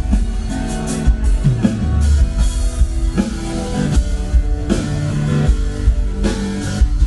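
Loud rock music from a band with drum kit, electric bass and guitar, playing a steady beat.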